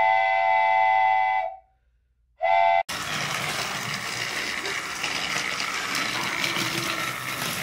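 A steam-train whistle gives one long blast of about a second and a half, then a short one. The sound then cuts over to the steady whirr and clatter of the battery-powered Trackmaster Percy engine running along its plastic track.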